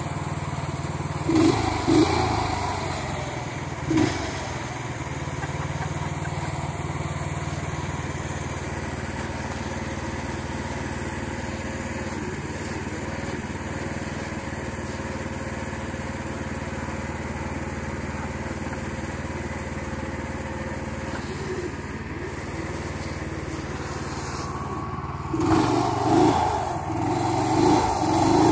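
Duromax 440 single-cylinder engine idling steadily, revved in short bursts about a second and a half in and again at four seconds, then revved repeatedly in the last few seconds as the truck is rocked to free it where it is stuck off the road.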